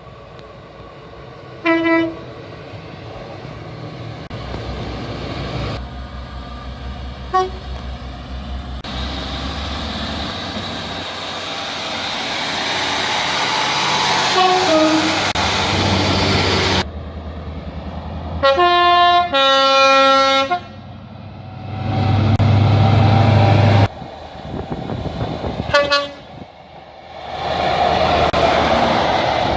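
A string of train horn blasts over the running noise of passing trains: short toots about 2 and 7 seconds in, a long horn sounding several tones at once past the middle, and another short toot near the end. Between the blasts a train's rumble swells as it draws near, and a low diesel engine note drones for a few seconds.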